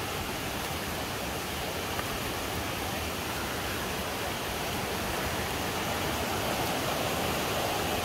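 Steady rushing of a river's flowing water, growing slightly louder in the second half.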